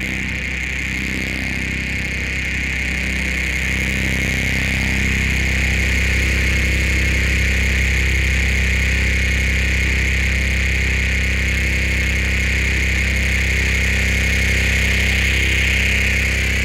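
Dark ambient sound-design drone built from location recordings: a steady low hum under a sustained high hiss-like band, swelling slightly after about four seconds.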